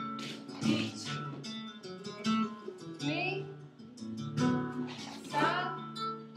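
Flamenco guitar playing alegrías, plucked notes broken by sharp strummed chords about once a second, with a voice singing over it in places.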